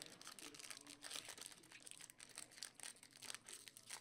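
Faint crinkling and rustling of baseball card packs and cards being handled and opened, a quick run of small irregular crackles.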